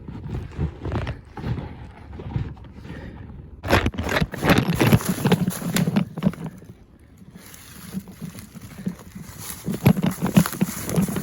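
Footsteps crunching and rustling through dry leaf litter and brush, in uneven bursts that are heaviest about four seconds in and again near the end, with the rustle of a handheld camera being jostled.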